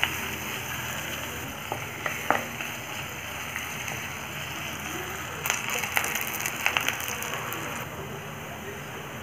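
Sliced onions sizzling in hot oil in a kadai on medium flame, frying down towards dark brown. A wooden spatula stirring them knocks and scrapes against the pan a few times, most busily about halfway through.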